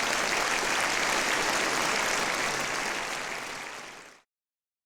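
Audience applauding, a dense, even clapping that eases a little and then cuts off abruptly about four seconds in.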